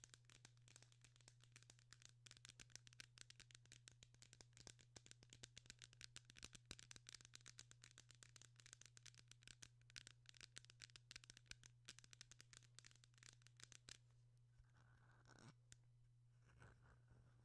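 Pestle grinding and scraping inside a white stone mortar: a fast, dense run of gritty scratches that about 14 seconds in slows to a few separate strokes. A faint steady low hum runs underneath.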